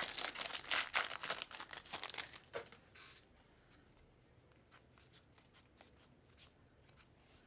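Plastic wrapper of a trading card pack crinkling and tearing as the pack is ripped open, for about two and a half seconds. After that it goes quiet apart from a few faint clicks.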